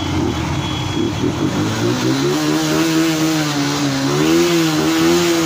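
Motorcycle engine being revved: from about a second and a half in its note climbs, wavers up and down, and rises again near the end, over the steady noise of other engines.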